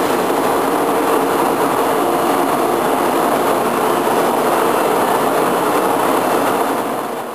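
Steady mechanical drone of shop background noise with a low hum running through it, fading out at the very end.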